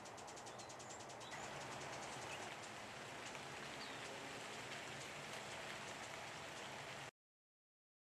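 Steady outdoor garden hiss, like light rain, with a few faint high bird chirps. A fast, even ticking runs in the first second and stops. All sound cuts off about seven seconds in.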